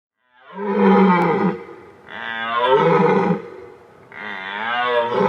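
Deer roaring: three long, loud calls about a second and a half each, with short pauses between them, the last one still going at the end.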